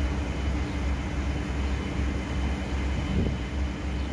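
A steady low mechanical rumble with a faint hum running through it.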